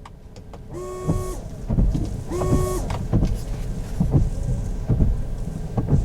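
Tesla Model 3 windshield washer system being run as a test. The washer pump whines briefly twice, then the wipers sweep with a regular low thump about once a second.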